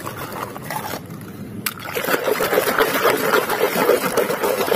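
Soapy water sloshing and splashing as a muddy plastic toy truck is scrubbed with a foamy scrubber in a basin. The scrubbing gets busier and louder from about two seconds in.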